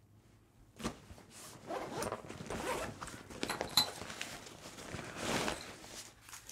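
Zipper being worked and heavy nylon fabric rustling on a padded recovery-gear bag as gear is pulled out of it, in uneven rasps with one sharp click near the middle.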